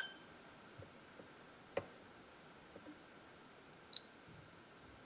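Futaba 32MZ radio transmitter's touchscreen giving one short high beep about four seconds in, as a key on the screen is pressed. A faint click a little before two seconds; otherwise quiet room tone.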